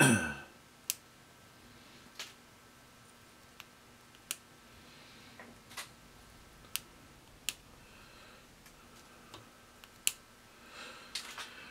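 Flush cutters snipping off the soldered component leads on a small circuit board: a string of single sharp snips about a second apart, the first the loudest.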